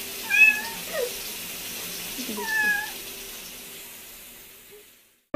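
Grey kitten meowing twice, high-pitched calls about two seconds apart, with a couple of shorter, fainter squeaky calls between them. A steady hiss sits underneath and fades away near the end.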